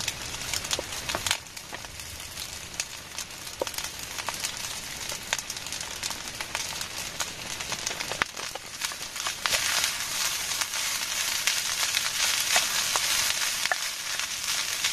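Freshly added rice frying with onion and egg in oil in a steel pan on a gas stove, sizzling steadily with scattered crackles and clicks. The sizzle grows louder about two thirds of the way through.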